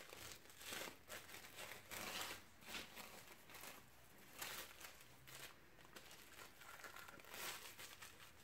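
Faint, irregular crinkling and rustling of a coat wrap being handled and folded around a Yorkshire terrier's hair.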